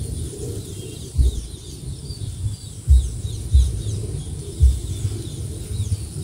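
Small birds chirping over a steady high-pitched whine, with several dull low thumps on the microphone at uneven intervals of about a second.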